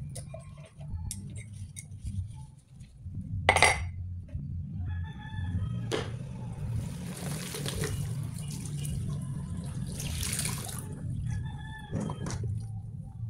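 Hand dishwashing at a stainless steel sink: a sharp clink of crockery about three and a half seconds in, then water splashing and running for several seconds in the middle.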